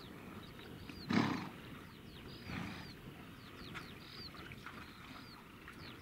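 Horse snorting: a loud, rough snort about a second in and a softer one about two and a half seconds in. Birds call throughout in short, high, repeated chirps.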